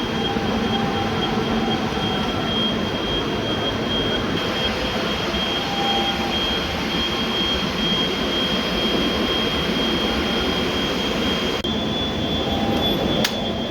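Steady machinery noise with a constant high-pitched whine and a low hum, as from a running CNC machine and its electrical cabinet; a single sharp click near the end.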